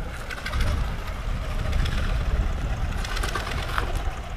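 Pompong boat's diesel engine running slowly with a steady, knocking chug while the wooden boat is manoeuvred into its berth.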